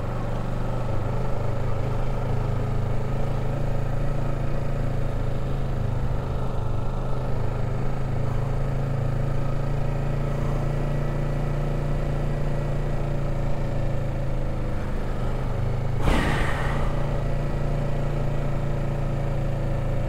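Kawasaki Ninja 650's parallel-twin engine running steadily at low revs while the bike rolls slowly along. There is one sharp clack about three-quarters of the way through.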